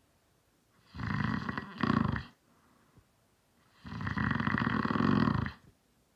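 A man snoring: two snores about three seconds apart. The first comes in two pulls, the second louder, and the second snore is longer and steady, almost two seconds.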